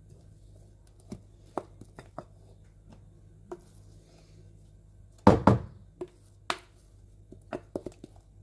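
A wooden spoon knocking and scraping against a glass bowl and the mixing bowl while whipped cream is tapped off it. There are scattered light taps, a loud cluster of knocks about five seconds in, another knock a second later, and a quick run of taps near the end.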